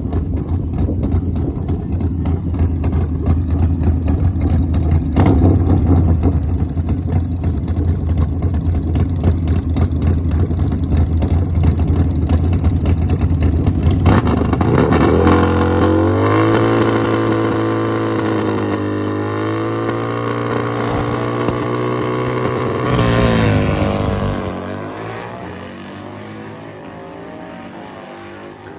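Two Harley-Davidson V-twin drag bikes, one a race-prepared Sportster, rumbling loudly at the start line with a blip of the throttle, then launching about halfway through. The engines rise and dip in pitch as they run down the strip, then the note falls and fades with distance.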